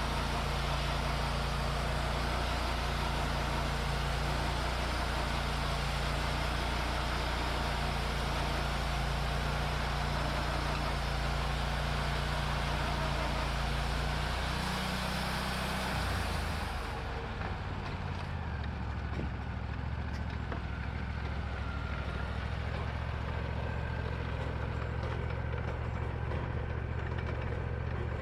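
Wood-Mizer LT40 band sawmill running, its band blade cutting through a shagbark hickory log with a steady engine drone and a dense hiss. About sixteen seconds in, the cutting hiss falls away and the engine settles to a different, steady note.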